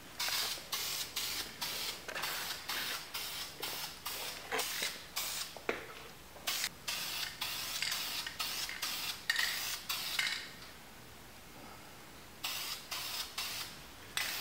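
Aerosol spray paint can hissing in short, quick bursts, about two a second, with a pause of about two seconds around ten seconds in before the bursts start again.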